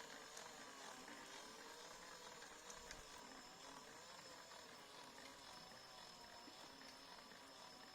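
Faint whine of a 1000 W e-bike electric motor, its pitch slowly wavering up and down as the load and speed change.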